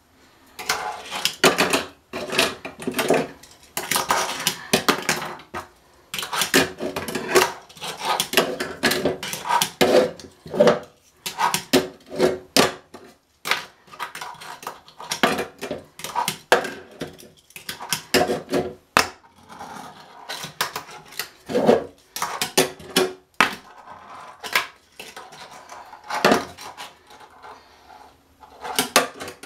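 A 29 mm Tech Deck fingerboard clacking and tapping on a stone countertop and a plastic ramp: irregular pops and landings of the little deck and wheels, with short stretches of the wheels rolling between them.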